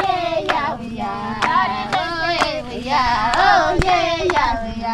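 A group of women singing a farewell song together, with sharp claps about once a second keeping time.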